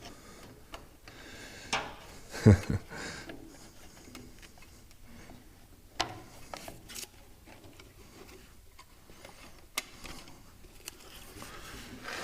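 Scattered handling noises from hand work on the tractor: light clicks, rubs and knocks, with one heavier thump about two and a half seconds in.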